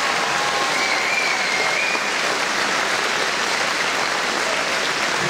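Audience applauding, a steady clatter of many hands clapping.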